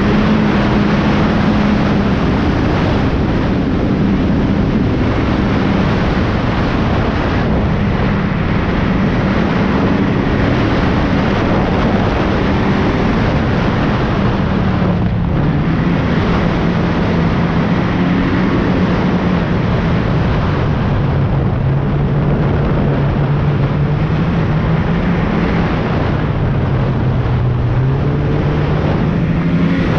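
Snowmobile engine running while riding the trail, its note dropping lower in the second half and climbing again near the end, over a steady rushing noise.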